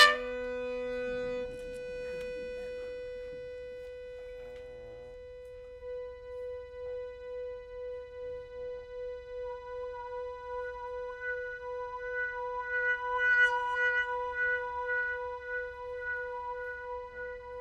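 Trumpet and accordion playing a contemporary chamber piece. A loud held note swells and breaks off at the start, then a single steady high note is sustained, pulsing about twice a second and swelling louder around three-quarters through.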